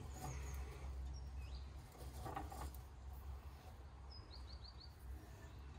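Small birds chirping faintly: a few single high chirps, then a quick run of four short chirps about four seconds in, over a steady low background rumble.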